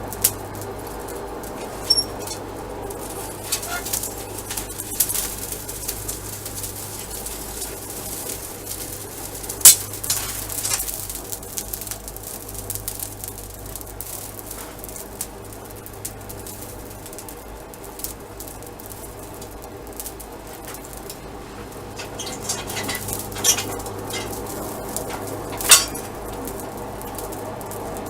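Steady drone of a running forge, with scattered sharp metallic clinks and clanks of steel and tools being handled during forge welding; the loudest clanks come about ten seconds in and near the end.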